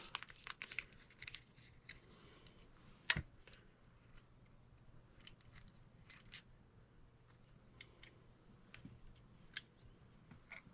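Scattered small clicks and taps of hand work on furnace parts, with a sharper click about 3 seconds in. A faint steady low hum runs underneath.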